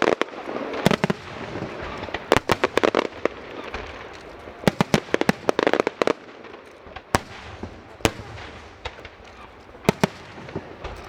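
Fireworks bursting: quick clusters of sharp bangs and crackles for the first six seconds or so, then single bangs spaced about a second apart.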